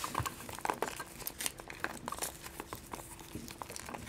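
Foil wrappers on Kinder Surprise chocolate eggs crinkling as the eggs are handled: light, irregular crackles.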